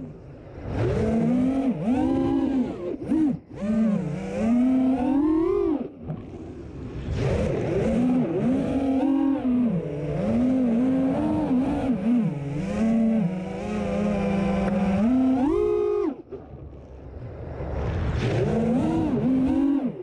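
Onboard sound of a 5-inch FPV freestyle quadcopter: its four Hypetrain Le Drib 2450kv brushless motors and Dal Cyclone 5050 props whining, the pitch swooping up and down with every throttle punch. The whine drops away briefly at throttle chops, with a longer lull about sixteen seconds in before it climbs again.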